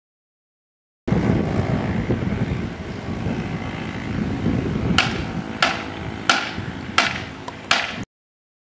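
Skateboard wheels rolling on paving: a steady rough rumble, with a sharp clack about every two-thirds of a second in the second half as the wheels cross the joints. The sound cuts in suddenly about a second in and cuts off abruptly just before the end.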